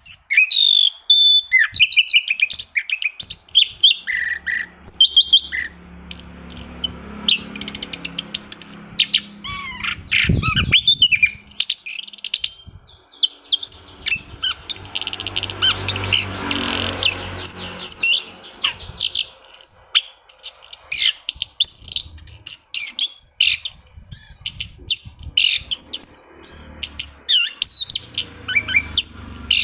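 Orange-headed thrush (anis kembang) singing: a long, fast run of varied chirps, whistles and sweeping notes with hardly a pause. It is a song recording meant as a lure to set a reluctant caged thrush singing.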